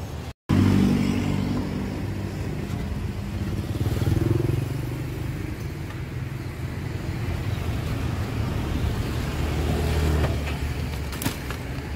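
A motorcycle engine running low and steady, with a couple of light clicks near the end.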